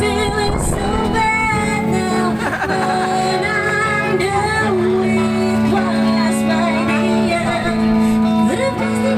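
Live music: a woman singing into a microphone, with a man accompanying on guitar.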